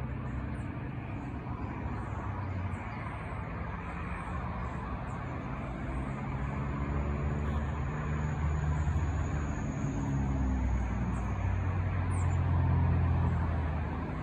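Steady low engine rumble of a motor vehicle, growing louder over the second half and loudest near the end.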